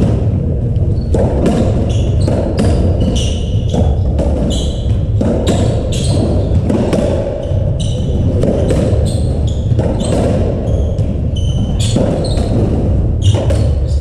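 Racketball rally: the hollow rubber ball thudding off the walls and floor and the rackets striking it, with short, high shoe squeaks on the wooden court floor, over a steady low rumble.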